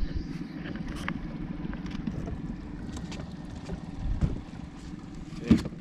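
Wind buffeting the microphone aboard a small boat, a steady low rumble, with scattered light knocks and a sharper knock near the end.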